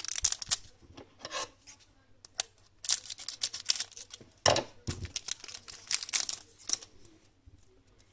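Hands taking a hockey card pack out of its cardboard box and opening it: irregular bursts of crinkling wrapper and rustling card stock, dying down after about seven seconds.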